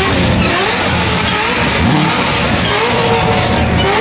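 Sports car engine revved repeatedly while standing, its pitch climbing and falling with each rev.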